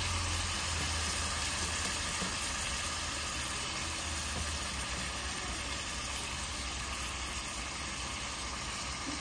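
Chunks of raw beef liver, kidney, heart and lung sizzling steadily in hot fried masala in a pressure cooker, over a low steady hum.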